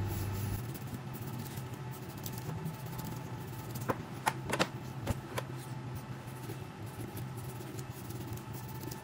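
Chef's knife scoring deep cuts through the scales of a whole fish on a plastic chopping board: a few short, sharp clicks and taps about halfway through, over a steady low kitchen hum.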